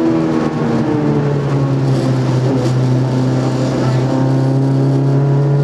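Group A Nissan Micra rally car's engine heard from inside the cabin: the revs drop about half a second in, then the engine pulls steadily with its pitch slowly climbing.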